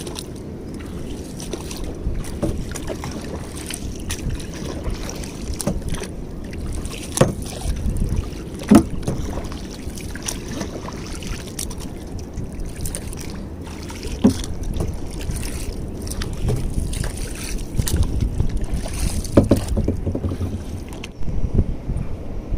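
Small paddled boat such as a kayak moving on the water, with steady water and wind noise on the microphone and a few sharp knocks, likely paddle strokes against the hull.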